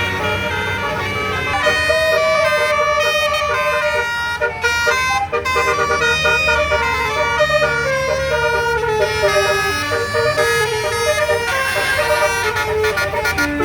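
Basuri musical air horn on a bus, the 'telolet' horn, playing a quick tune of stepping notes over the low running of the bus engine.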